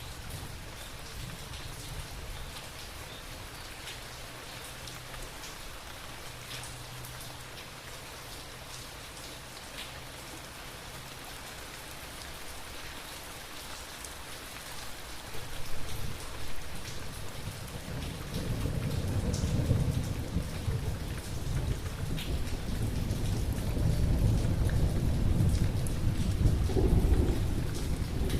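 Steady rain falling, with a patter of individual drops. A little past halfway, thunder starts to rumble low and keeps rolling, growing louder toward the end.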